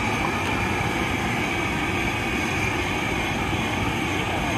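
Compressed-air gun blowing a jet of air onto a hot blown-glass piece, really loud. It comes on abruptly at the start and holds as a steady, even rush of air.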